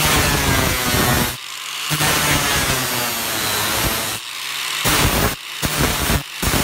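Electric angle grinder with an abrasive disc grinding into the end grain of a wooden log block: a loud rasping grind over the motor's steady hum. The grinding drops back several times as the disc eases off the wood, then bites again.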